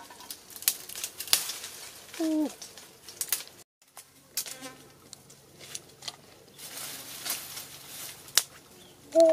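Dry twigs and branches snapping and crackling as they are broken by hand, with a bird calling once a couple of seconds in. After a cut, quieter scratching and scraping in dry soil and leaf litter, with a fly buzzing briefly.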